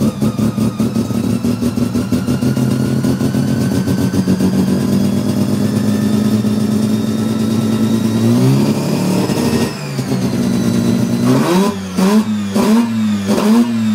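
Mazda 13B bridgeported rotary engine, heard from the driver's seat, held at a fast idle with a rapid pulsing beat and a slowly rising pitch, then revved up quickly about eight seconds in and let drop. Near the end it gets about four quick throttle blips in a row, rising toward 6,000 rpm and falling back.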